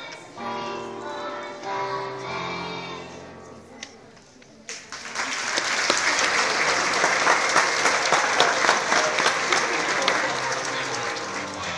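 A children's class choir sings the last notes of a song, then, about five seconds in after a brief pause, the audience breaks into loud, sustained applause.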